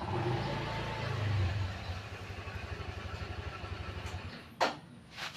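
A small engine running with a low, even pulse, loudest at first and fading out about four seconds in, followed by two sharp knocks near the end.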